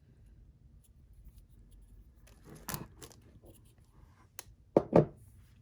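Items from an unboxing being handled: light rustling and small clicks, with a brief sharper sound about a third of the way in and a louder double knock near the end.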